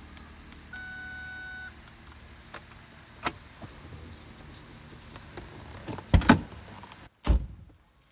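Interior of a 2010 Ford Mondeo with the ignition on: a steady low hum, a one-second electronic chime about a second in, and a few light key clicks. Near the end come heavy clunks, two close together and one more a second later: the central door locks cycling, which on this car signals that it has entered remote-programming mode.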